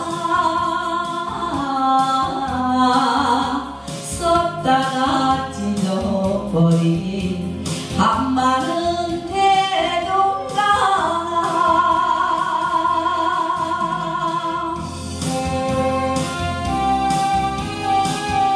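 A woman sings an old Korean trot song into a microphone over a karaoke backing track.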